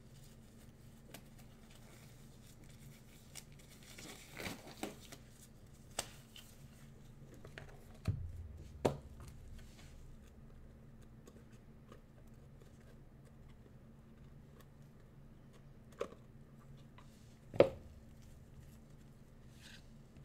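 Gloved hands working open trading-card boxes and handling a stack of cards: a few scattered taps and knocks of cardboard against the table, the loudest near the end, over a low steady hum.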